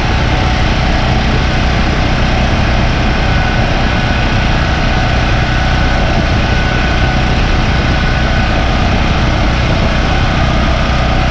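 Portable generator's small gasoline engine running steadily and loudly, close up, at an even pitch and level throughout.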